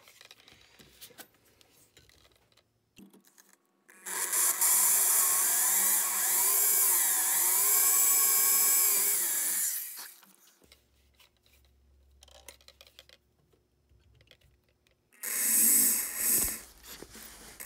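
Handheld electric drill boring a small hole through a flattened steel fork. The motor whines for about six seconds, its speed sagging and recovering as the bit bites, then runs again briefly near the end.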